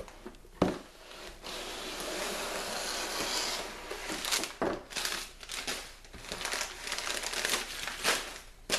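Packaging being opened and handled: wrapping crinkling, tearing and rustling, with a sharp snap about two-thirds of a second in and scattered crackles after.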